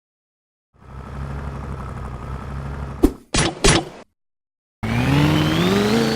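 Car engine sound effects: an engine idling steadily, then a click and two short thuds, and after a brief gap an engine revving up with rising pitch.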